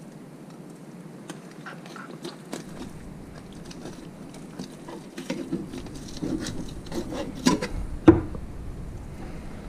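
Tautog being filleted on a wooden cutting board: knife scraping and the fish rubbing and shifting on the wood, with scattered taps and knocks. A louder knock comes about eight seconds in.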